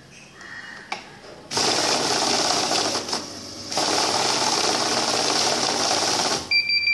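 Cashtron banknote-counting machine feeding and counting a stack of notes: a fast, dense rattling whir that starts about a second and a half in, dips briefly, resumes, then stops near the end. A steady pulsing two-tone beep follows: the machine's alarm for a detected fake note.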